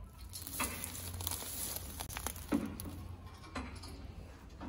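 A few light metal knocks and rattles from a galvanized steel sheep combi clamp as its frame and checker-plate floor step are handled and shifted by hand, with some rustling in between.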